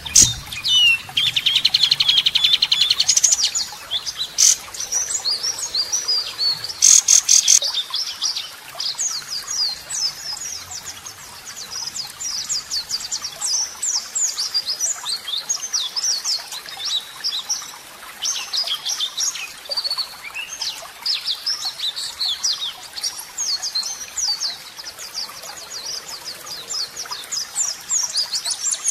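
Cililin (burcil) song played as a masteran, a training track for white-rumped shamas. It opens with a buzzy trill, has harsh, rough bursts at about 4 and 7 seconds in, then runs on as a long stream of quick, high chirping notes.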